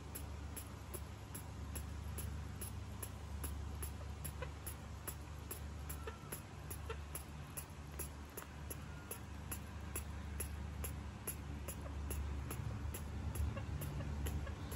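Even ticking, about three ticks a second, over a low steady hum, with two faint short squeaks about six and nine seconds in.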